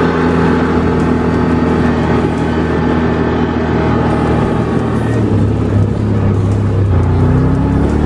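Maverick UTV's engine running steadily as the vehicle drives under remote-control throttle; its note rises near the end.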